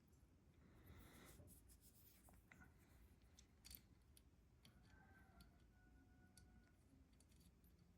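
Near silence, with faint scattered clicks and rubs of small carburetor parts being handled as a jet is fitted.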